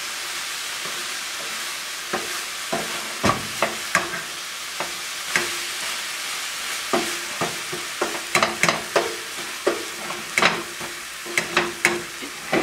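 Crumbled tofu sizzling in hot oil in a nonstick frying pan, with the scrape and tap of a spatula stirring and turning it. The spatula strokes come more often in the second half.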